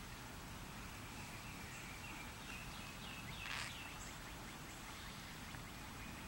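Faint birds chirping in short, gliding notes over a steady low background rumble, with one louder, sharper call about halfway through.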